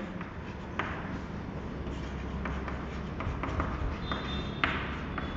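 Chalk tapping and scratching on a chalkboard as words are written, a series of faint scattered clicks over a low steady hum.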